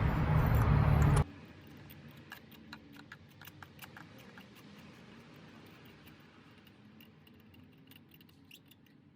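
Light, irregular metallic clicks and ticks of a spark plug socket and extension turning as a new spark plug is threaded in by hand. They are preceded by a low steady hum that cuts off abruptly about a second in.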